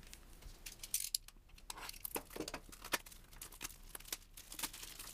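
Plastic shrink-wrap torn open and crinkled by hand: a quick run of irregular crackles and rustles.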